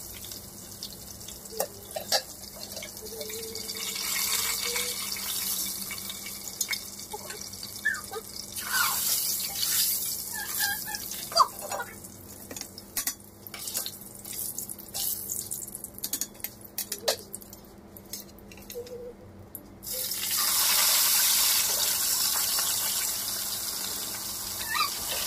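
Hot cooking oil sizzling and crackling in a wok as whole fish fry. The sizzle jumps much louder about twenty seconds in, when a fresh fish goes into the hot oil.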